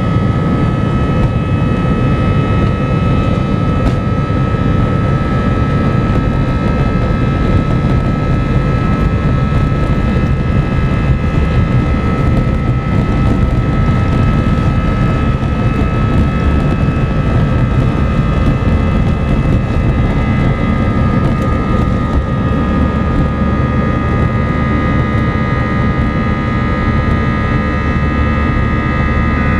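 Airbus A319 jet engines running steadily, heard inside the passenger cabin as a loud, constant rumble and rush of air with several steady whining tones. The engine tones shift slightly about three quarters of the way through.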